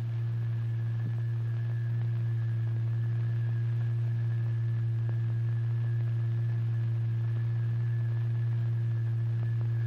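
A steady, low electronic tone held at one pitch, with a fainter higher overtone: the sine test tone driving the vibrating material in a cymatics experiment.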